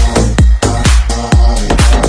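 Electronic dance music with a thumping kick drum about twice a second and sustained synth chords.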